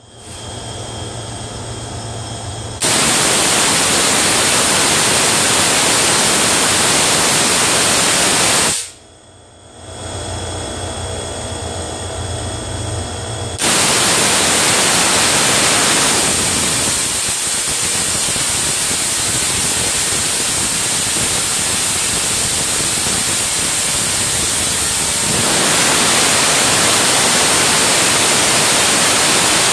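Spark-gap Tesla coil firing, its arcs making a loud, even crackling hiss. It starts about three seconds in, stops about nine seconds in, and starts again about fourteen seconds in. While it is off, only a low steady hum remains.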